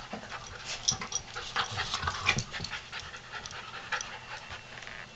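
A beagle-mix puppy and a pit bull mix dog play-wrestling: quick panting and mouthing, with scattered short scuffles and clicks from paws and bodies on carpet.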